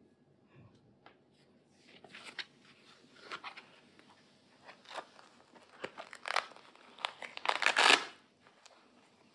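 Stiff plastic Elizabethan collar (cone) rustling, crinkling and clicking as it is handled and adjusted around a cat's neck. The sound comes as scattered clicks and rustles, with the loudest crinkling rustle near the end.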